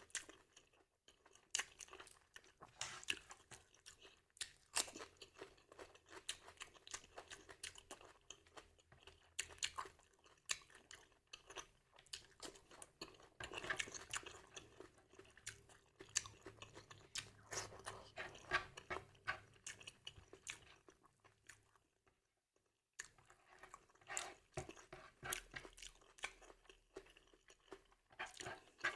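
A person chewing and crunching food close to the microphone, with irregular crisp crackles from the bites, pausing briefly about three-quarters of the way through.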